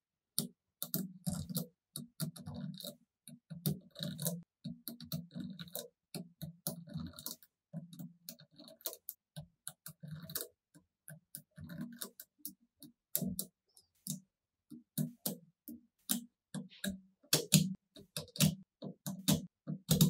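Small magnetic balls clicking and snapping together as strips of them are pressed onto a magnetic-ball model, in quick irregular clicks with short rattles between them.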